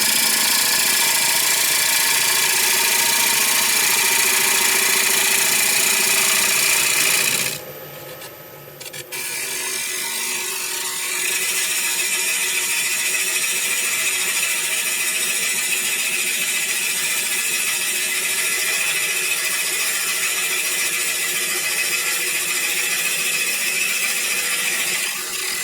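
Turning tool cutting into a curly maple bowl spinning on a wood lathe: a steady scraping hiss over the lathe's hum. It stops for a couple of seconds about a third of the way in, then starts again and keeps steady. The tool was overextended past the rest, which the turner could feel as he cut.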